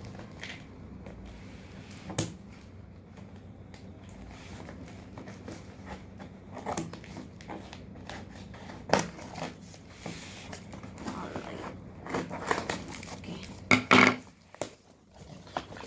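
Parcel packaging being opened by hand: scattered crinkling, rustling and tearing with a few sharp knocks, the loudest cluster near the end.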